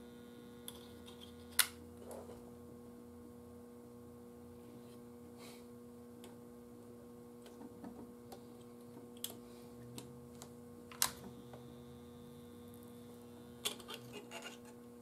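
A soldering gun hums faintly and steadily while it is held on a capacitor lead, with a few small clicks and taps from handling the parts.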